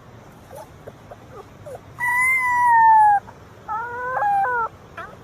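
A dog's high-pitched howls: a few faint short yelps, then one long howl about two seconds in that falls slightly in pitch, and a shorter wavering howl near the end.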